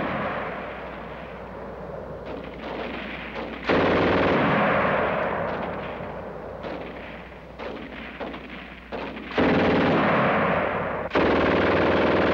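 Machine-gun fire in long continuous bursts. New bursts break in sharply about four, nine and eleven seconds in, the first fading gradually.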